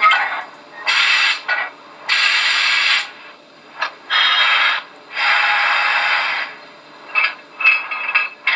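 Coupler sound effect from the sound decoder of a Trix 22941 model SNCF class 241 A steam locomotive, played through the model's small onboard speaker. It is a run of scraping, clanking bursts: five longer ones of about half a second to a second and a half each, then several short sharp clicks near the end.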